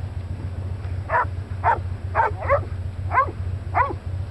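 Hog-hunting bay dogs barking as they hold a boar hog at bay: six sharp barks in a quick series, about half a second apart, over a steady low hum.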